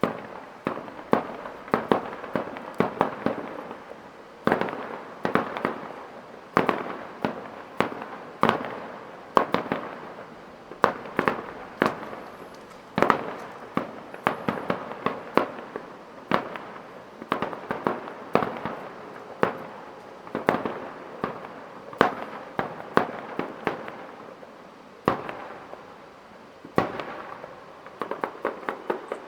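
Fireworks display: aerial shells bursting one after another, with sharp bangs every second or so and crackling between them. There is a brief lull about 25 seconds in, then a quick run of bursts near the end.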